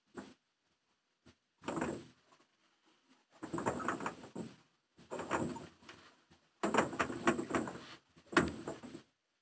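Rowboat oars working in their oarlocks, with about six uneven strokes in a row, each a scraping, creaking knock. The strokes come at the irregular pace of someone struggling to row.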